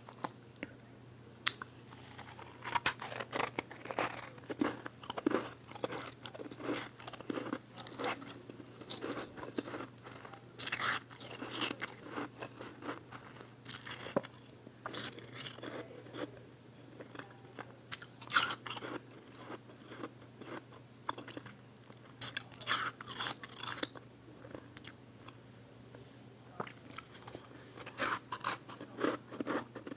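Close-up crunching and chewing of soft, fresh-blended ice pressed into small chunks. The bites come in clusters of crisp crackles, with quieter pauses between mouthfuls.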